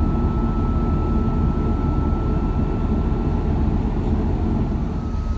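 Airbus A330 cabin noise in flight: the steady low rumble of jet engines and rushing air, with a thin whine running above it that drifts slightly lower.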